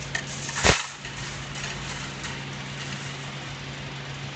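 Vertical baler running with a steady low hum, with one sharp knock a little under a second in.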